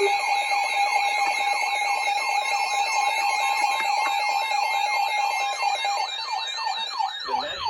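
Several electronic emergency-alert alarms sounding at once: a fast siren-like sweep repeating about three times a second over a steady tone and a high warble. A further lower-pitched alarm joins near the end.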